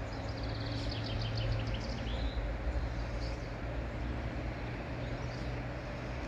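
A songbird sings one quick phrase of about a dozen high notes, stepping down in pitch and ending about two and a half seconds in, over a steady low outdoor rumble.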